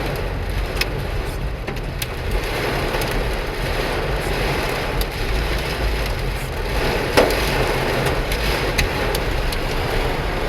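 Heavy rain pouring onto a car in a thunderstorm, heard from inside the cabin, with scattered sharp ticks of drops and small hail striking the body and one louder hit about seven seconds in. Under it runs the low rumble of the car driving.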